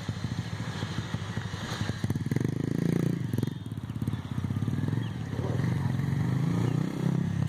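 A small engine running steadily, growing louder about two seconds in and wavering slightly in pitch.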